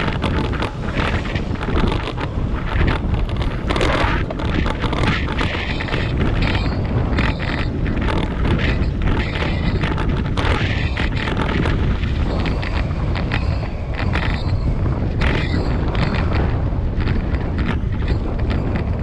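Wind buffeting the microphone of a camera on a moving bicycle: a steady low rumble with many short crackles and knocks all through.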